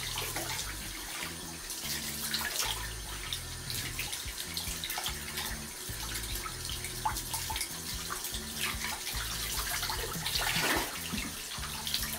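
Water running from a bathtub tap and splashing over hair as it is rinsed, with a brief louder splash a little after ten seconds in.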